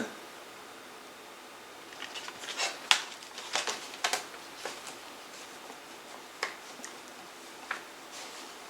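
Plastic CD jewel cases being handled: scattered light clicks and rustles, starting about two seconds in after a quiet start.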